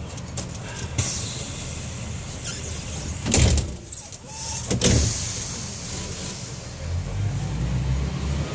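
Cabin noise of a crowded diesel commuter train: a steady rumble and hiss with two loud knocks about a second and a half apart in the middle. Near the end the low engine rumble grows louder.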